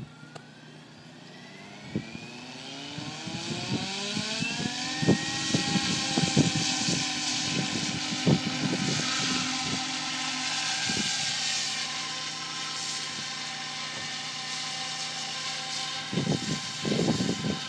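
Electric SAB Goblin 700 RC helicopter spooling up: the motor and rotor whine rises steadily in pitch for about six seconds, then holds steady at flying head speed over a rushing hiss of the blades. Irregular low thumps come through the middle and bunch up near the end, as it hovers.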